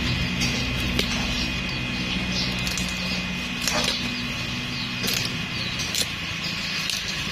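Young bamboo side shoots snapping off by hand, each breaking with a sharp pop: three loud snaps in the second half, among a few fainter cracks.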